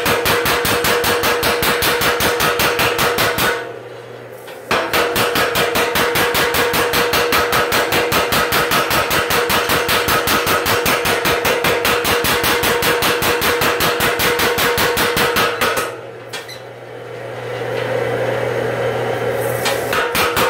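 Home-built power hammer with a roughly 55-pound ram pounding a red-hot steel bar on its anvil in a fast, even run of blows. The blows stop for about a second around four seconds in, run again until about sixteen seconds, then give way to a low steady hum before a short burst of blows near the end.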